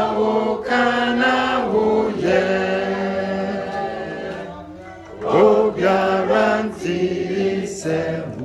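Voices singing a slow chant in long held notes, each phrase sliding up into its first note, with a brief break a little past halfway.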